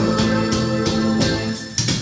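Recorded music played back through a tube-amplified hi-fi system: Kora Cosmos valve amplifiers driving Shahinian Obelisk loudspeakers. It is a sustained instrumental passage that drops away briefly near the end.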